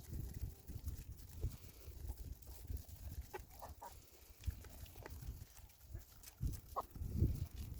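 A few short farm-animal calls, brief and scattered, over low thumps and rustling.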